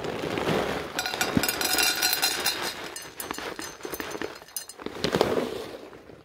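Dense rustling and crinkling handling noise, thickest from about a second in until about five seconds in, then fading away.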